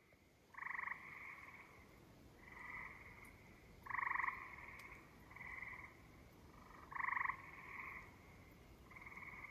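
A frog calling in short trills about every three seconds, with fainter calls in between.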